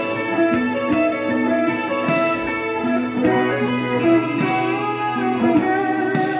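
Ibanez electric guitar played melodically, with held, sustained notes moving from one pitch to the next.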